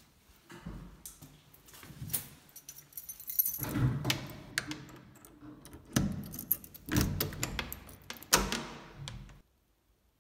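A bunch of keys on a keyring jangling and clicking against a door lock as the door is unlocked, in several rattling bursts that cut off suddenly near the end.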